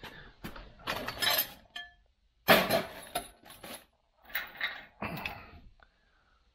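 Irregular clinks and clanks of hard objects, metal among them, being knocked or handled, in short separate bursts; the loudest is a sharp clank about two and a half seconds in.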